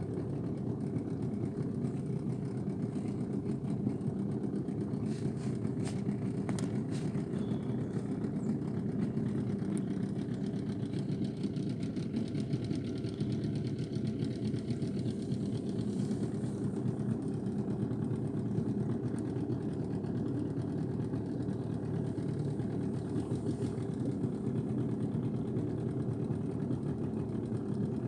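Small boat's outboard motor running steadily at low speed, a constant low drone that does not change.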